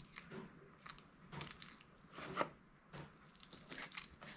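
Knife cutting raw chicken thigh meat away from the bone: a few faint, irregular wet crunches and scrapes, the loudest about halfway through.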